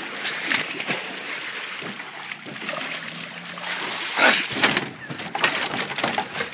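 Water splashing and churning as a large flathead catfish thrashes while being wrestled up out of the water by hand. The heaviest splashes come about four seconds in, as the fish is heaved out.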